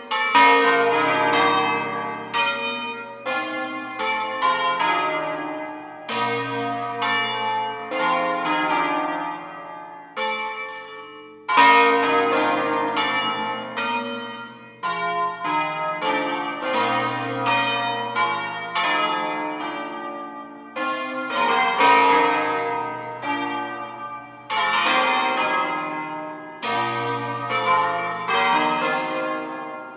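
Eight swinging bronze church bells in B-flat, cast by Fratelli Barigozzi of Milan in 1894 with the tenor recast in 1991, rung as a solemn concerto. Strikes follow one another in quick melodic runs, each note ringing on, with the low tenor sounding every few seconds and a brief pause between phrases.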